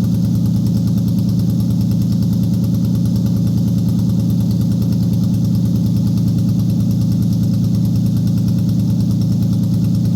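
Toyota 1GZ-FE V12 engine idling steadily, an even low hum with no change in speed.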